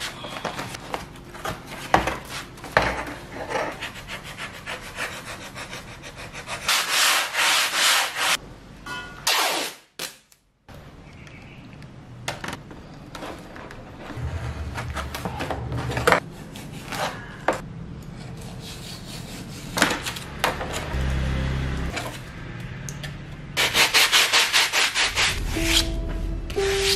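Hands rubbing over and handling a paper-faced foam-board wing panel on a wooden workbench: irregular scraping and rustling with frequent knocks and taps against the table.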